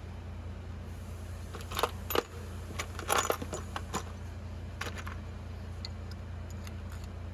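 Small metal objects clinking and rattling in a few short clusters, about two, three to four and five seconds in, over a steady low hum.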